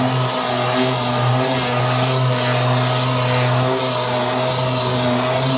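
Orbital sander running on cured body filler over a dented car door panel: a steady hum with a hiss, starting suddenly right at the beginning.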